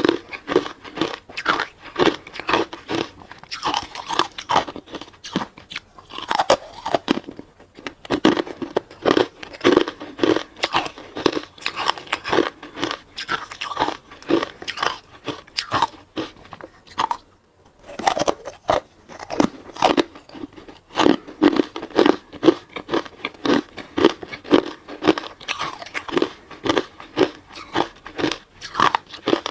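A person biting and chewing hard ice, with rapid crisp crunches, several a second. There is a short pause about seventeen seconds in.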